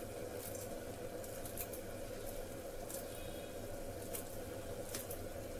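Kitchen scissors snipping a green chilli, a sharp snip about once a second, over a steady low hum.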